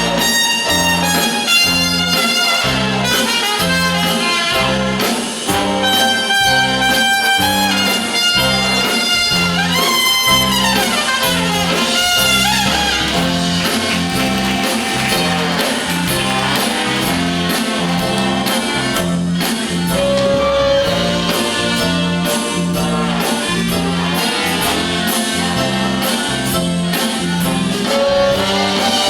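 Brass band playing a jazz blues, with trumpets and saxophones over a steady bass beat. About ten seconds in, a brass line sweeps upward.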